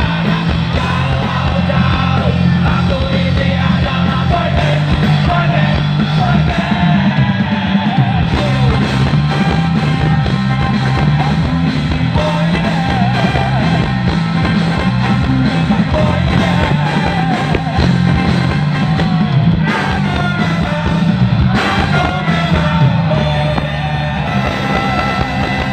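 A live ska-punk band playing through a loud PA, with a lead vocal and bass, drums and guitars running steadily.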